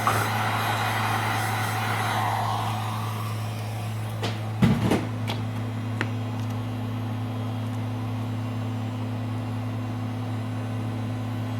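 Heat gun running: a steady low hum with a rush of blown air that fades after about three seconds. A few sharp clicks and a knock come around the middle.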